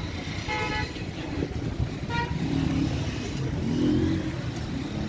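Street traffic rumbling steadily, with a short car horn toot about half a second in.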